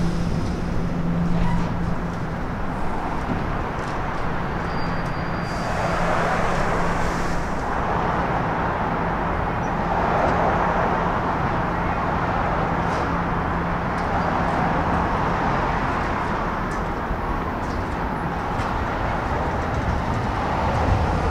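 A train approaching along the tracks: a steady low hum under a rushing noise that swells and eases twice, with a deeper rumble building near the end.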